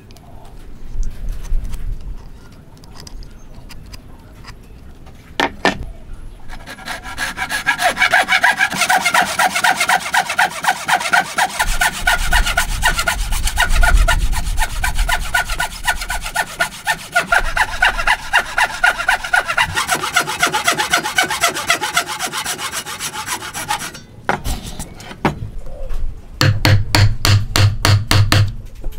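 Handsaw cutting through hardwood in rapid back-and-forth strokes. Near the end comes a quick, steady series of sharp blows as a chisel is driven into the wood to chop out dovetail waste.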